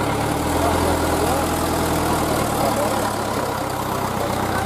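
Truck diesel engine idling, its note shifting slightly a couple of times.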